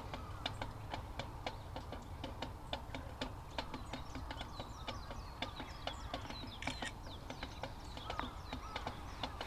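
Wood fire crackling in a compact fire grill: a steady scatter of irregular sharp pops and ticks.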